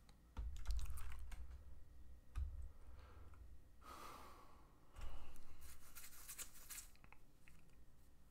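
Computer keyboard keys clicking in short runs, with dull low thumps against the desk about half a second, two and a half and five seconds in, and a brief rustle about four seconds in.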